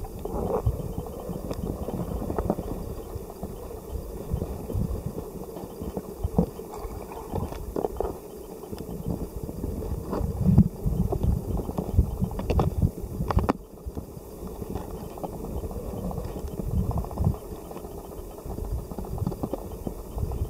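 Stream current heard underwater: a muffled, continuous rushing and gurgling, with irregular low thumps and a few sharp clicks, one clear click a little past halfway.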